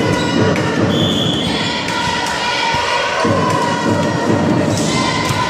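Crowd din in a sports hall with repeated low thuds, and a short high whistle about a second in, the referee's signal for the serve.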